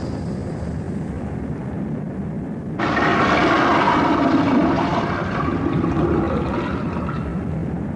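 Cartoon monster sound effect: a low steady rumble, then about three seconds in a loud roar that starts suddenly and fades away over about four seconds.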